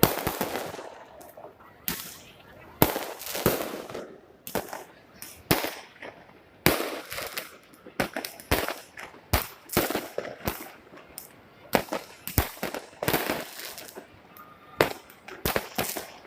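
New Year fireworks going off: a rapid, irregular series of bangs, several a second at times, each with a short echoing tail.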